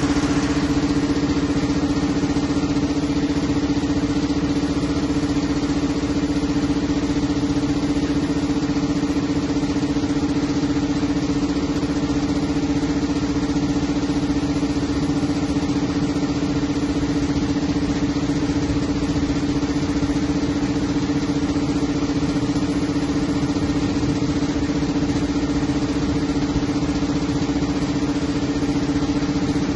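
Cummins M11-G2 inline-six diesel engine of a 250 kW generator set running steadily and putting out voltage, a loud, even hum that does not change.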